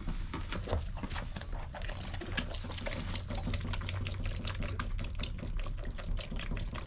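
Bottle-fed young farm animals sucking and slurping milk from bottles: rapid, irregular wet clicks over a steady low hum.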